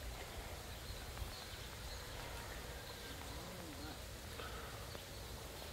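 Outdoor background ambience: a low steady rumble with faint distant voices.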